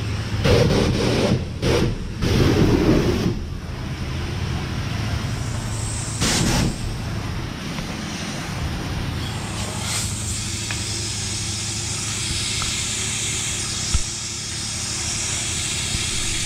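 Self-serve car wash pressure wand spraying water onto a car: a steady hiss of the water jet over a low hum, louder and uneven for the first few seconds.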